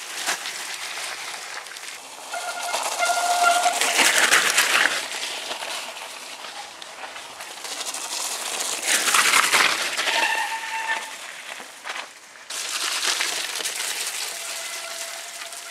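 Mountain bikes riding through deep wet mud: tyres splashing and squelching in a rough hiss that swells as each rider passes. A few brief, steady squealing tones come through, each about a second long.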